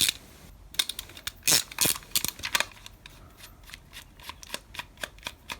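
Small ratchet screwdriver clicking as it backs a small screw out of a plastic toy revolver: a few louder clicks in the first two seconds, then an even run of light clicks at about three or four a second.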